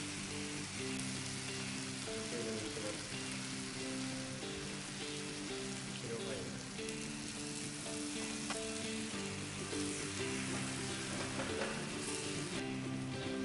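Chicken thighs, sliced onion and tomato sizzling in a frying pan over high heat as white wine vinegar boils down; the hiss thins out about a second before the end. Light background music with held notes plays alongside.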